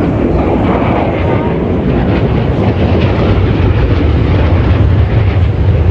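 Jet aircraft flying overhead, its engine noise loud and steady.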